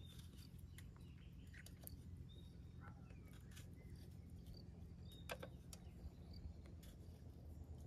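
Faint, scattered short bird chirps over a low steady rumble, with light clicks and taps from handling tomatoes and metal kebab skewers. The sharpest click comes a little past halfway.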